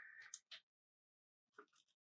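Near silence, with a few faint rustles of a folded paper leaflet being unfolded in the first half second.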